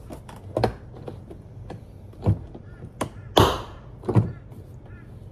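Plastic upper door trim panel of a 2026 Tesla Model Y being pulled off the door: about five sharp snaps and knocks over a few seconds as its retaining clips pop free of the metal door frame.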